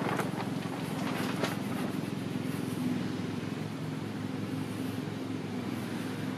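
Steady low hum of a running engine, with a few short pencil scratches on plywood along a steel rule in the first second and a half.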